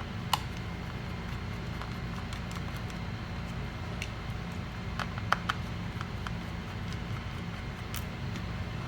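Scattered small clicks and taps of a screwdriver and tiny screws on a laptop's aluminium bottom case, over a steady low hum. There is one sharp click just after the start and a few more about five seconds in.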